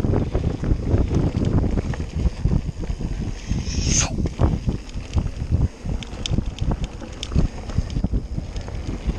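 Wind buffeting the camera microphone while an enduro mountain bike rattles and knocks over the bumps of a dirt trail at speed. A brief high squeak that falls in pitch sounds about four seconds in.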